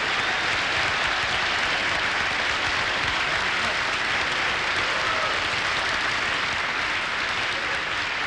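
Theatre audience applauding steadily, easing off a little near the end.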